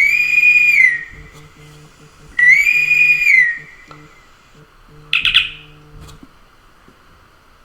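iPhone ringtone with a whistle-like tone: two whistles, each sliding up, holding and sliding back down, about two and a half seconds apart, then a short chirp about five seconds in.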